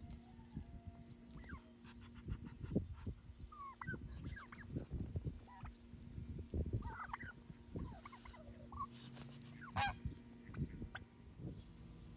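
Wind gusting against the microphone, with short scattered calls from farmyard poultry.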